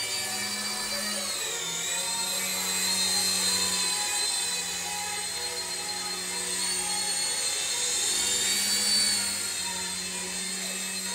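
Toy remote-control helicopter's small electric motors and rotors whining steadily in flight. The pitch dips and recovers about two seconds in and shifts again near the end, with a low hum underneath.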